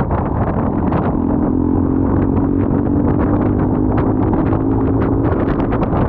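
Motorcycle riding at highway speed, wind buffeting the microphone loudly over the engine. A steady engine hum stands out for a few seconds in the middle, as the bike overtakes a truck.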